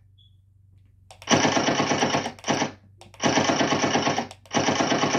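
Gunfire sound effect: three bursts of rapid automatic machine-gun fire, each about a second long, with brief near silence between them.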